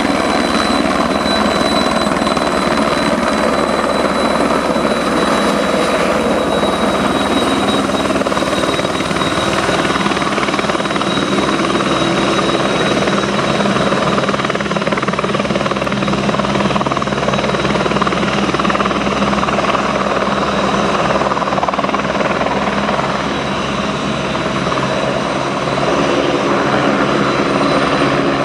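Airbus Helicopters AS350B3 Ecureuil's single turboshaft engine and three-blade main rotor running at flight power as it hovers and descends to land, with a steady high whine over the rotor noise. The level dips briefly about three-quarters of the way through.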